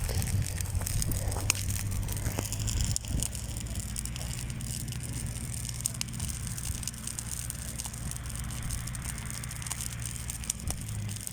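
Tractor engine running steadily as a low hum, with light scattered clicks and crackles over it.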